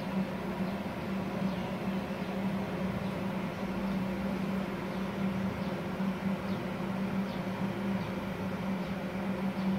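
Inverter TIG welder (Multipro TIG 400D G-TY) and its WC 10L-SD water cooler switched on and idling: a steady low hum with fan hiss over it, unchanging throughout.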